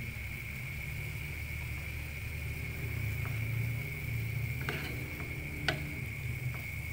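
Vegetables simmering in a shallow buttery liquid in a nonstick frying pan, stirred with a wooden spatula, over a steady low hum. The spatula knocks against the pan a few times, most sharply about five and a half seconds in.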